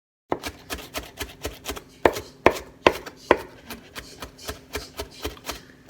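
Knife chopping on a cutting board in quick, even strokes, about four a second, with four harder strokes near the middle.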